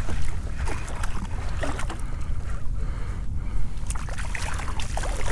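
Wind rumbling steadily on an action camera's microphone, with scattered small knocks and clicks.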